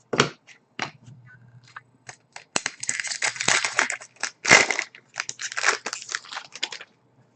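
Crinkling and tearing of a trading card pack's wrapper, with scattered clicks of cards being handled; the rustling is densest in the second half.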